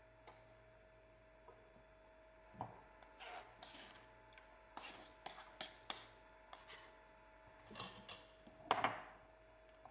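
Metal spoon scraping and tapping tangerine purée out of a wire mesh sieve, with scattered small clinks and scrapes; a louder clink near the end.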